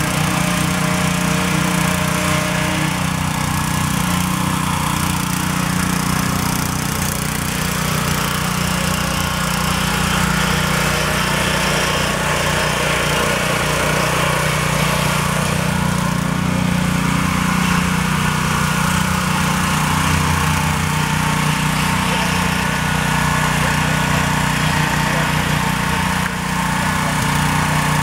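Small gasoline engine of a Powerhorse all-terrain wheelchair running steadily at an even pitch as the chair drives along.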